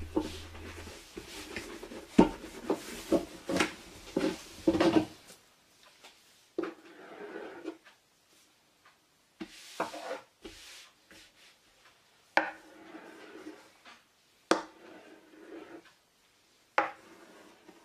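Thin baklava dough on a wooden board: a long wooden rolling pin rolls and knocks over it for the first few seconds. Then a knife cuts the sheet into triangles in about five strokes, each a sharp tap on the board followed by a short scrape.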